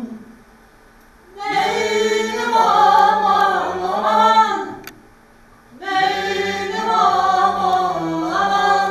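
Choral singing, women's voices to the fore, in two long phrases: the first begins about a second and a half in, and after a short pause the second begins about six seconds in.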